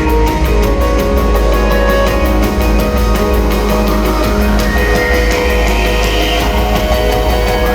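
Loud, dense music with a fast pulsing beat and a sweep that rises in pitch through the second half.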